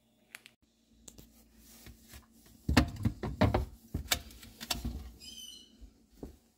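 A glass bowl of clams in water is handled and pulled out of a refrigerator. A run of knocks and clinks comes about three seconds in, followed by a short high squeak.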